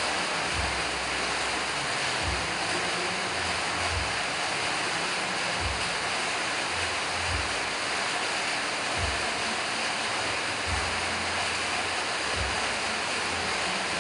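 Steady rushing noise with irregular soft low bumps every second or so.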